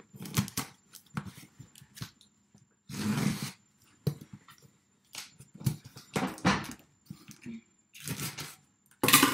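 Cardboard box being handled and opened: irregular rustles, scrapes and crackles of cardboard and packaging, with a longer tearing sound about three seconds in and a loud one near the end.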